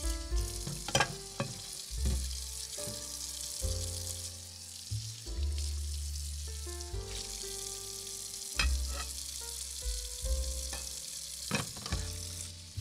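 Stew sizzling and bubbling in a miniature stainless steel pot, stirred with a tiny metal slotted spatula that clicks against the pot now and then. Background music plays over it.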